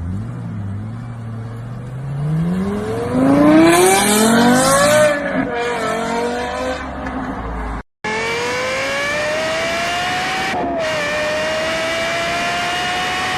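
Lexus LFA's 4.8-litre V10 revving: it idles, then winds up steeply and falls back. After a brief break it pulls hard at high revs, the pitch climbing slowly with a small dip at each upshift.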